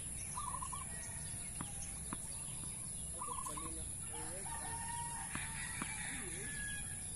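A rooster crowing, with other birds calling: a short rapid trill repeats about every three seconds. A few faint knocks of a tennis ball on a racket come through.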